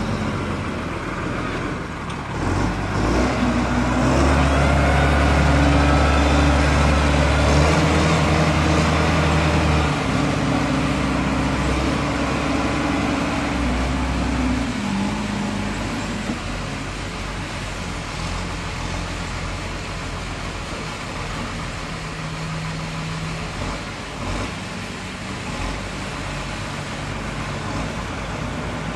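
Foton wheel loader's diesel engine running as the loader drives and maneuvers. It works hardest from about four seconds in, then drops back to a lower, steadier run at about fifteen seconds.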